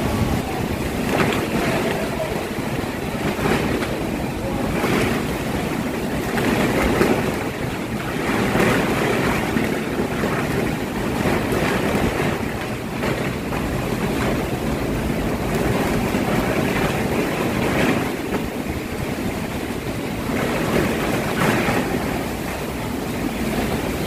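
Heavy rainstorm: rain pouring down steadily while strong wind gusts swell and ease every few seconds, with wind rumbling on the microphone.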